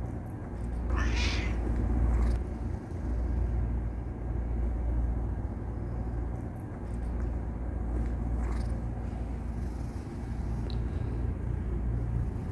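A cat purring, a steady low rumble with brief breaks, with a short meow about a second in and a fainter one later.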